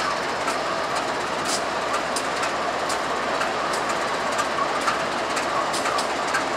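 Diesel freight train rolling past: the steady run of BNSF locomotives and autorack cars, with wheels clicking over rail joints about once or twice a second.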